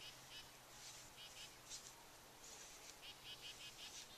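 Near silence, with faint high-pitched chirping in the background that comes in short runs of a few chirps at a time.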